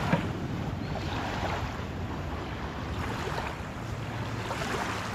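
Small waves lapping at the sandy shoreline of calm, shallow water, with a low rumble of wind on the microphone.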